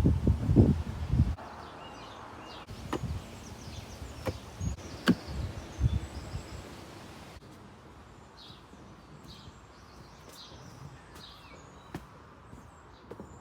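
Outdoor woodland ambience: a few heavy thuds at the start and several sharp knocks, then small birds chirping in short calls.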